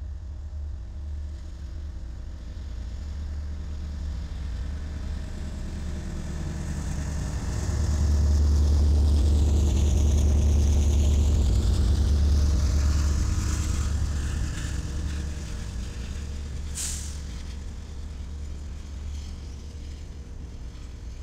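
Freight train of flatcars loaded with armored military vehicles rolling past close by, a deep rumble that swells about eight seconds in and slowly eases off. A brief high squeal cuts through once, near the end.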